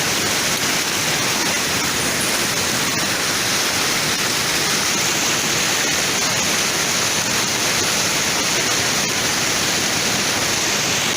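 Steady rush of a fast-flowing mountain stream, an even loud hiss that does not change.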